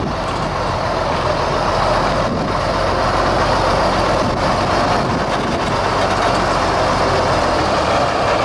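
Mack R-model dump truck's diesel engine running under light load as the truck pulls slowly away, a steady low engine note that grows a little louder about two seconds in.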